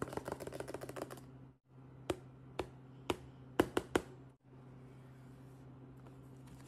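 Fingernails tapping and clicking on a Barbie Cutie Reveal packaging tube: a quick rattle of clicks for about a second and a half, then about six separate taps, over a steady low hum.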